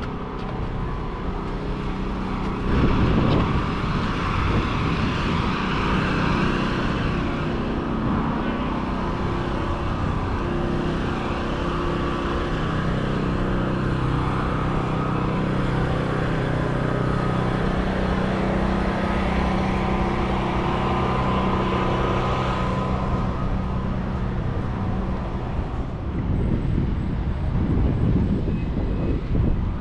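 City street traffic: motor vehicles passing with engine and tyre noise. A vehicle's engine hum holds steady for about ten seconds in the middle.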